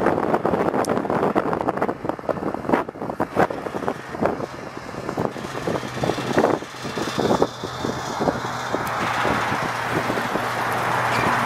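1979 GMC 6000 water truck driving slowly across gravel, its engine running with a steady low hum under irregular crackling and knocks. The engine noise grows gradually louder over the last few seconds.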